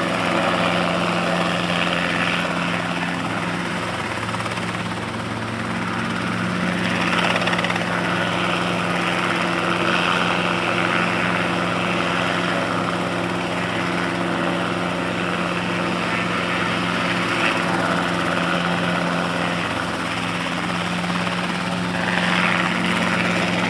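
Small helicopter's engine and rotor running steadily as it hovers and manoeuvres low over the ground, the sound swelling and easing a little several times.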